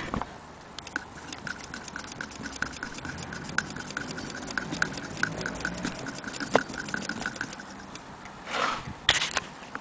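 Antique Willcox & Gibbs sewing machine being run, its mechanism clicking evenly about five times a second before it stops; a couple of short handling knocks and rustles follow near the end.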